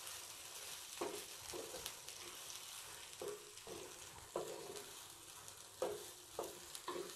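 A spatula stirring and scraping thick ground raw-mango thogayal paste in a nonstick frying pan, over a faint steady sizzle. The strokes come unevenly, roughly one a second.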